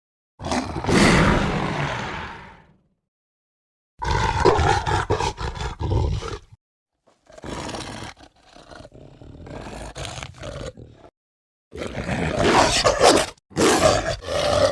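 Film werewolf creature sound effects played one after another with silence between them: a long roar that fades out, then rough snarls and growls, some quieter, and loud snarling again near the end.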